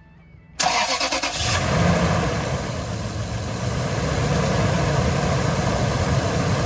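Toyota Tundra's 4.7-litre 2UZ-FE V8 cranked by the starter about half a second in, catching after about a second and settling into a steady idle. It is run to push air out of the freshly refilled cooling system after a new water pump and timing belt.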